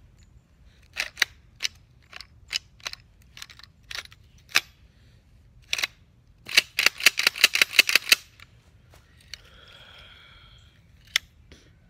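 Metal clicks and clacks from the action of an old rusty 12-gauge shotgun being worked by hand: scattered single clicks, then a fast rattling run of clicks, a brief scrape and a last click. It sounds rough and loose, the action apparently not holding as it should.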